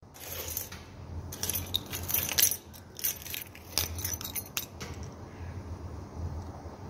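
Rustling handling noise with a cluster of sharp clicks and clinks as a hand moves close to the microphone and picks up a keyring with a clear plastic fob, over a faint steady low hum. The clinks come mostly in the first half, thinning out after about five seconds.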